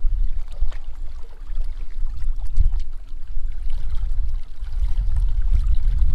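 Wind buffeting the microphone in an uneven low rumble, with small waves lapping and splashing against the shoreline rocks.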